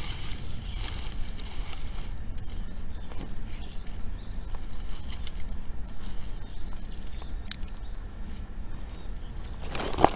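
Outdoor wood fire crackling, with a few faint sharp pops over a steady low rumble of wind on the microphone. Near the end come several loud crunching steps or knocks.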